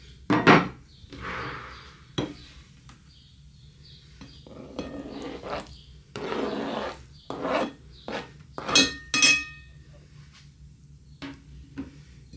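Kitchen handling sounds: dishes and cutlery knocked and set down in a series of separate clinks, with short scraping and rustling in between. Two clear ringing clinks come about three-quarters of the way through.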